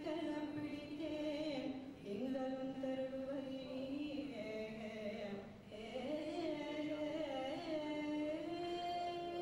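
A woman singing a slow devotional melody solo, with gliding pitch and long held notes.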